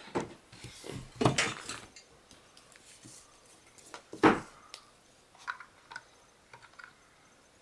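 Hard plastic knocks and clicks as a tablet cradle and its AC adapter plug are handled and fitted together. There is a cluster of knocks in the first second and a half, a louder knock about four seconds in, then a few light clicks.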